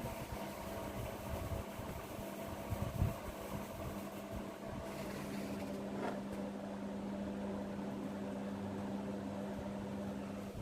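CNC 3018 Pro desktop router running a pen-plotting test, its stepper motors and electronics giving a steady machine hum. A higher whine stops about halfway through.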